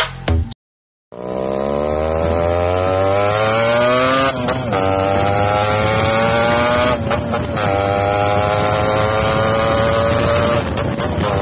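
Motorcycle engine accelerating hard through the gears: its pitch climbs steadily, drops briefly at each gear change about three, six and nine seconds in, then climbs again.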